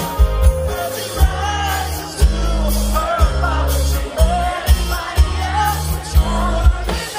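Live rock band playing, with a male lead singer over a bass line and drum beat.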